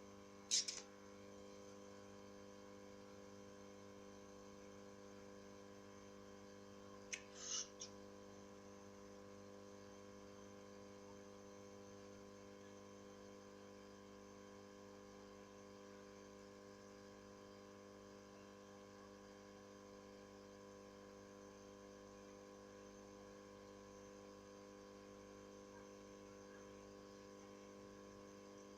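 Faint, steady electrical mains hum, otherwise near silence, with two brief clicks about half a second in and again about seven seconds in.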